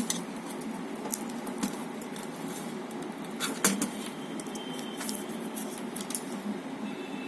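Scattered light clicks, taps and scrapes of plastic parts being handled as a long battery is slid into the slide rails of a plastic exit-light housing, over a steady background hum. The sharpest knock comes a little past halfway.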